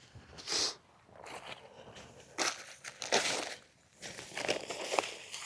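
A 3x3 backpacking tarp being handled and its back corners pegged down: irregular bursts of fabric rustling and scraping with a few sharp knocks.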